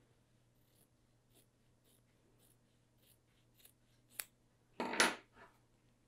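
Small sewing scissors snipping a fabric seam allowance in half (grading it), in faint, short snips about every half second. Near the end a sharper click and a louder rustle as the scissors are set down and the fabric is handled.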